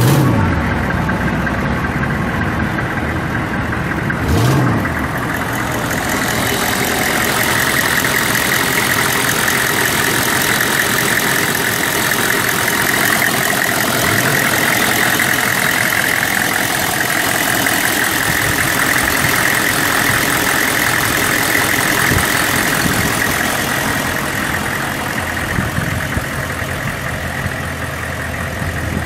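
6.5-litre V8 turbo diesel engine of a 1997 Chevrolet 3500 pickup, revved briefly at the start and again about four seconds in, then idling steadily with a constant high-pitched whine over the idle.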